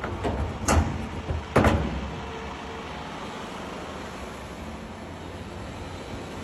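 Excavator at work: clattering that ends in two sharp clanks about a second apart, then the machine's engine running steadily.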